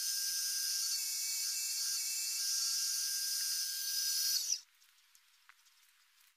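A Bernardo wood lathe running with a walnut vase blank spinning on it: a steady high-pitched whine and hiss. It cuts off abruptly about four and a half seconds in, leaving near silence.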